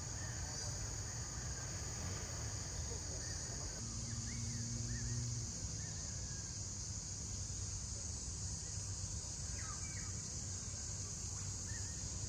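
Steady high-pitched insect drone from crickets or cicadas, with a few short bird chirps scattered through it over a low rumble.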